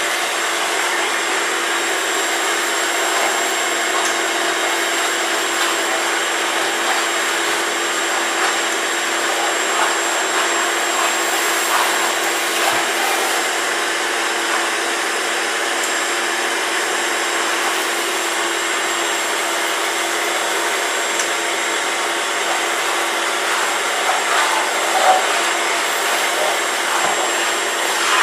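Vacuum cleaner running steadily with a constant whine while it sucks up a mess, with a few faint clicks and rattles, the largest about 25 seconds in.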